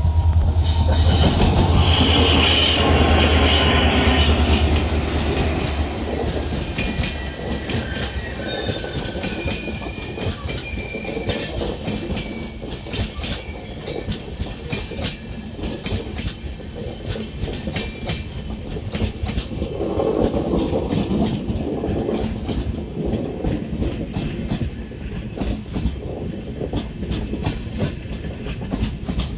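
WDP4D diesel locomotive's two-stroke V16 engine passing close with a loud, steady low drone that fades out about eight seconds in, followed by its LHB coaches rolling past, wheels clattering over the rail joints.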